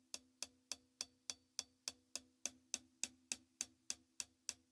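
Closed hi-hat struck with the tip of a drumstick in an even, steady pulse, about three and a half strokes a second. The strokes land on the harder part of the cymbal, which gives a sharper, more strident sound.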